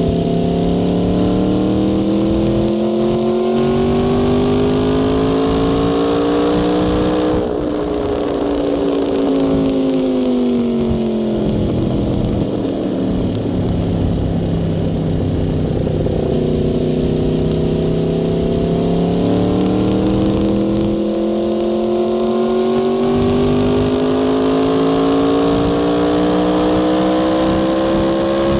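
Aprilia Tuono V4 R's V4 engine under load at highway speed: its note climbs steadily for about seven seconds, falls away over the next several as the throttle eases, holds level for a few seconds, then climbs again through the rest.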